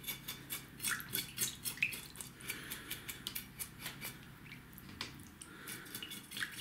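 Knife scraping the scales off a small sharpbelly fish: quick rasping strokes, about five a second, easing off in the middle and picking up again near the end.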